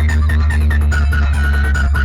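Loud electronic DJ remix music with heavy sustained bass and a steady beat, with a high synth melody over it.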